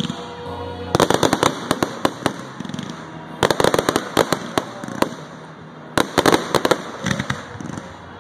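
Aerial fireworks bursting in three rapid-fire volleys of bangs and crackles, each lasting a second or so, with brief lulls between them.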